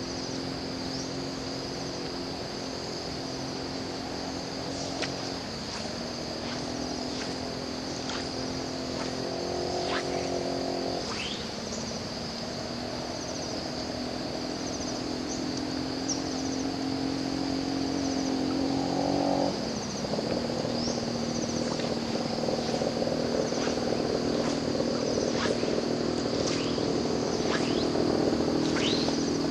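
Insects buzzing in a steady high chorus, over a low engine hum that shifts pitch a few times, with scattered short falling chirps.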